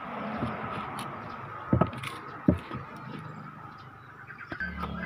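A couple of sharp clicks as the battery and its leads are handled at a small homemade OTL transistor amplifier. About four and a half seconds in, a steady low hum suddenly starts up from the connected speaker as the amplifier takes power.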